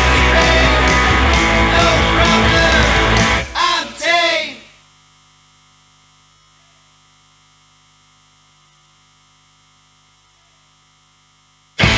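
Punk rock song ending: loud guitars, bass and drums stop, a few last bending notes ring out and fade within about a second, then a faint steady electrical hum until the next song crashes in just before the end.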